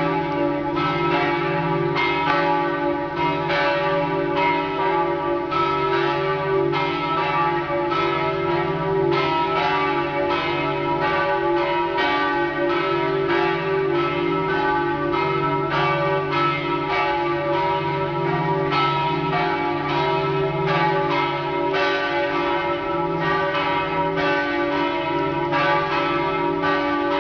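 The bells of the Campanile di San Marco pealing together, with a continuous run of overlapping strikes and their ringing tones.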